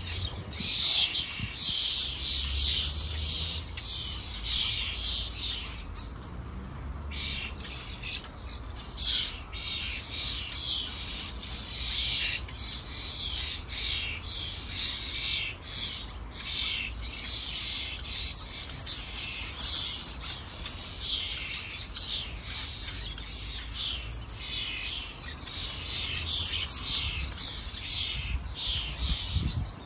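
Small garden songbirds chirping and twittering continuously in a dense, overlapping chatter, with a brief lull about six seconds in.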